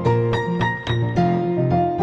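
Background music played on a piano or electric piano, a run of notes changing several times a second.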